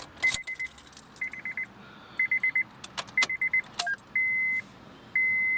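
Keys jingling and clicking in a 2008 Honda Fit's ignition lock while the car's dashboard warning chime beeps about once a second. After about four seconds, with more clicks as the key is turned to the on position, the chime changes from a rapid trilled beep to a steady beep. The engine is not running yet.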